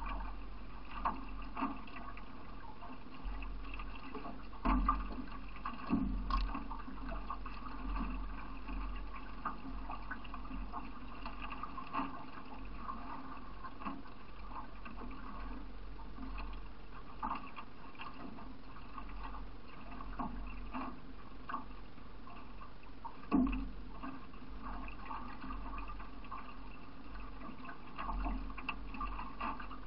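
Water sloshing and rushing along the hull of a solo racing canoe as it is paddled down a river, with scattered louder splashes and knocks, the strongest about 23 seconds in.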